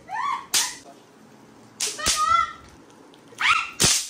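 Throw-down bang snaps (party poppers) cracking on a stone floor: three sharp cracks about a second and a half apart, with short voice sounds around each one.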